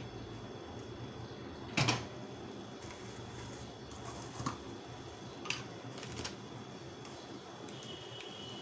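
Steady low kitchen background hum with a few light clicks and one sharp knock about two seconds in.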